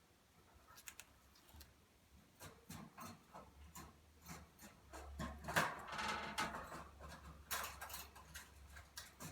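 Light, irregular taps and scratches of a pet chipmunk's claws as it scampers about, with a denser patch of scrabbling about halfway through.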